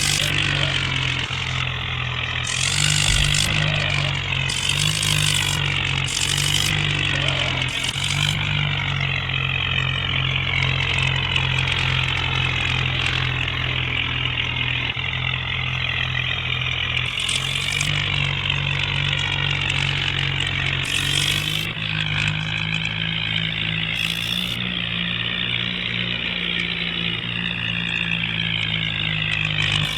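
A bulldozer's engine running steadily throughout, its low note shifting slightly a few times.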